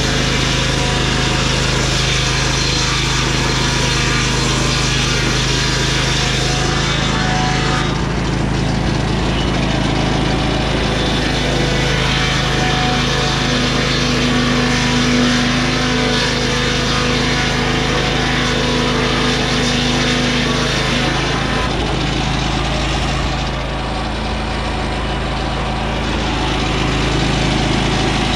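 Lucas Mill 618 sawmill, driven by a Briggs & Stratton Vanguard 18 HP V-twin engine, running steadily at working speed while its circular blade saws through a lodgepole pine log.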